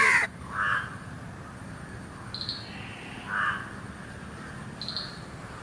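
Crows cawing: two harsh caws about three seconds apart, with two short high chirps between and after them.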